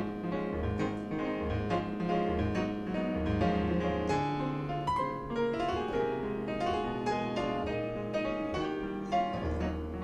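Piano music: a melody over a repeating bass line.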